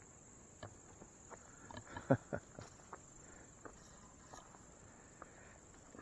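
Faint steady high-pitched drone of crickets, with scattered light clicks and taps, the loudest about two seconds in.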